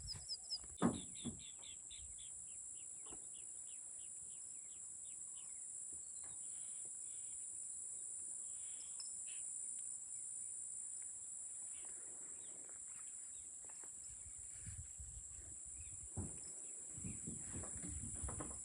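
Insects droning at a steady high pitch throughout, with a bird calling a quick run of short notes that each fall in pitch, slowing and fading over the first five seconds or so. A few soft thumps and rustles come near the start and again towards the end.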